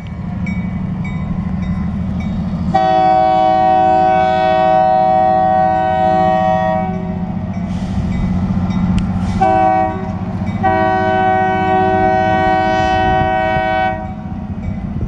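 Indiana Harbor Belt switcher locomotive 1512 sounding its air horn: a long blast, a short one, then another long one, over the steady rumble of its diesel engine.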